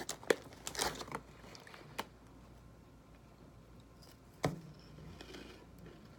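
Crunchy puffed cauliflower snacks being bitten and chewed, heard as a few scattered crunches and rustles, with a sharper crunch about four and a half seconds in.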